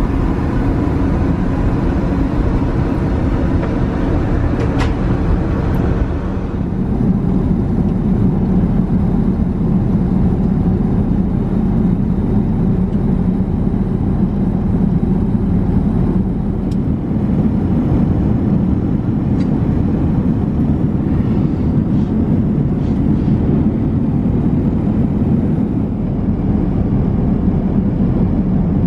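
Steady in-flight cabin noise of an Airbus A380: an even rumble of engine and airflow noise. For the first few seconds it carries more hiss, then it settles lower and smoother, with a few faint ticks.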